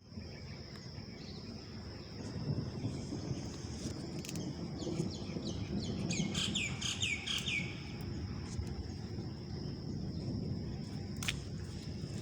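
Birds chirping, with a quick run of falling chirps in the middle, over a steady high-pitched insect-like hum and a low rushing background noise.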